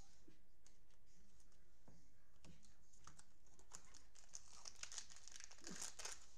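Foil wrapper of a Panini Prizm football cello pack crinkling as gloved hands handle it and open it. The crackling is faint and sparse at first, then thickens from about halfway.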